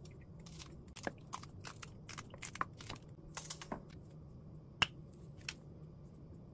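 Kitchen scissors snipping a fresh green chili pepper into pieces: a quick run of crisp cuts, then a single sharp click about five seconds in.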